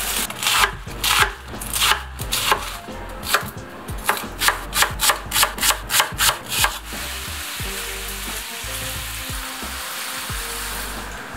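Chef's knife chopping a leek on a plastic cutting board, a run of sharp strokes about three a second. Then from about seven seconds in, a steady sizzle of food frying in a pan.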